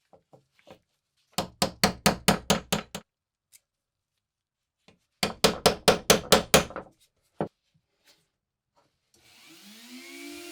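Two quick runs of sharp hand-tool strokes on metal, about five a second, working on a rusty pocket knife. Near the end a small electric rotary tool starts and spins up.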